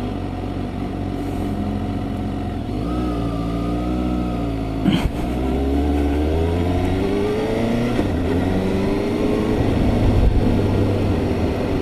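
Suzuki GSX-S750 motorcycle's inline-four engine under way: its pitch dips, a sharp click comes about five seconds in, then the pitch climbs steadily for several seconds as the bike accelerates.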